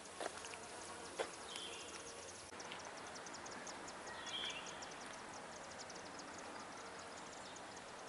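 Quiet outdoor garden ambience: a few short, high bird chirps over a fast, even run of faint high ticks, about six a second, that starts a third of the way in.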